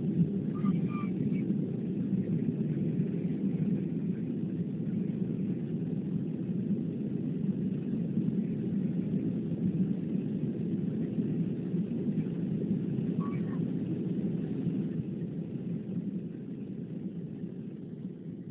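Cabin noise of a Boeing 737-500 climbing out: a steady low roar of its CFM56-3 engines and the airflow, heard inside the cabin by a window over the wing. It eases a little over the last few seconds.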